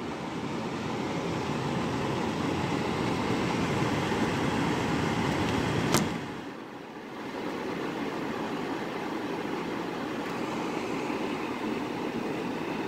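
Broan bathroom exhaust fan running: a steady whoosh of moving air over the motor's hum. A single sharp click comes about six seconds in, and the sound dips briefly before settling back to the same steady level.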